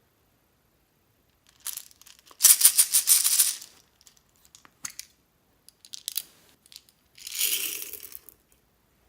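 Slime being squished and worked by hand, crackling and popping with dense little clicks. It comes in two main bursts, about two and a half and seven seconds in, with a few scattered clicks between them.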